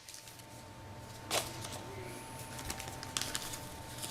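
Faint steady hum with a thin high whine, broken by a sharp click about a second and a half in and a few small ticks near the end, like objects being handled on a bench.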